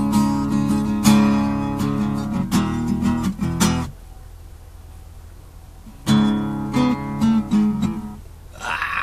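Fender acoustic guitar played with strummed chords that ring out; the playing stops about four seconds in, leaves a gap of about two seconds, then starts again and dies away near the end.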